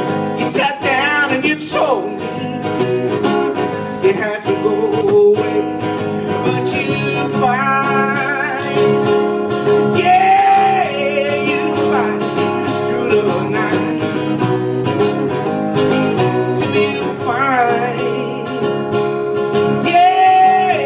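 Solo acoustic guitar strummed in a steady acoustic blues rhythm, with a man's voice singing long, bending notes over it in places.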